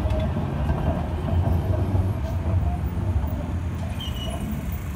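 Munich R2.2 low-floor articulated tram rolling past on street track: a steady low rumble from its wheels and running gear, easing off slightly near the end.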